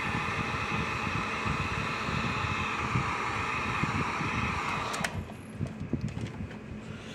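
Wagner heat gun running, its fan blowing steadily while it shrinks heat-shrink tubing over a soldered wire splice. It is switched off about five seconds in, followed by a few faint clicks.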